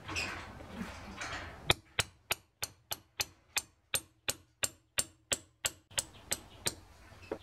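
A pin punch is tapped about sixteen times in quick, even succession, roughly three taps a second. The sharp metallic taps drive a grease-soaked cloth strip down into a steel block's pin hole, building hydraulic pressure under the dowel pin. Soft handling noise comes before the tapping starts.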